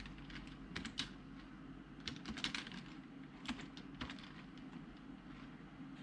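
Computer keyboard being typed on, keystrokes clicking in short bursts of a few keys, sparser after about four seconds, over a low steady hum.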